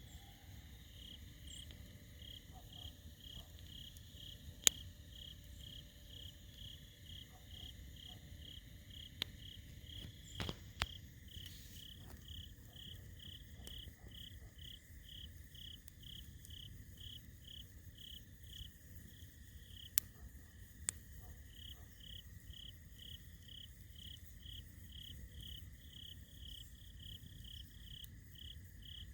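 Crickets chirping steadily, about two or three chirps a second with a short break about two-thirds in, over the low rush of a campfire. The fire gives a few sharp pops, the loudest sounds here.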